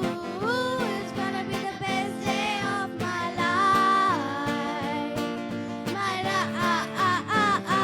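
A song: a voice sings a melody with held, wavering notes over instrumental accompaniment and a steady percussive beat.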